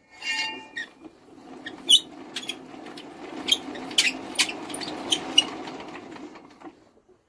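Norman flat-twin engine being turned over by hand to test the magneto for spark: a brief squeak, then a steady rasping churn of the engine turning with irregular sharp clicks, stopping near the end.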